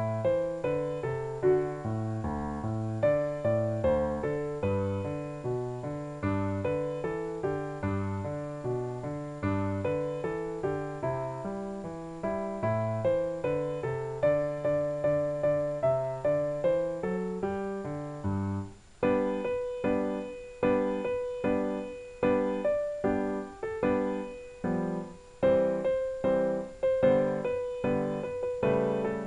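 Background piano music: a flowing melody over a bass line, changing about two-thirds of the way through to evenly repeated chords, about two a second.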